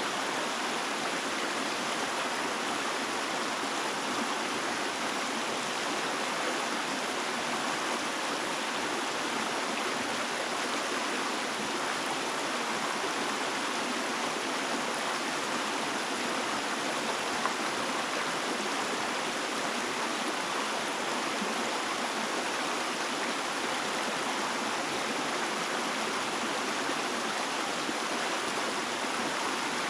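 Running water rushing steadily, an even, unbroken hiss of a stream.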